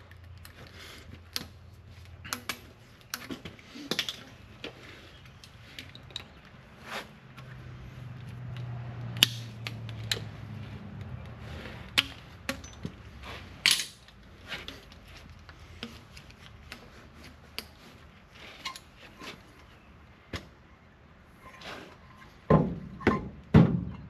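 Scattered small metallic clicks and clinks of hand tools and electrical conduit fittings being handled, over a faint low hum.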